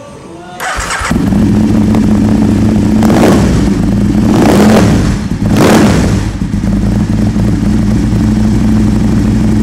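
Aprilia motorcycle with a one-off custom exhaust starting up about a second in, blipped three times, then settling into a steady, loud idle.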